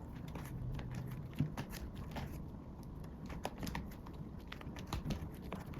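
Pages of a photocard binder being turned: plastic sleeves crinkling, with irregular small clicks and a sharper tick about a second and a half in.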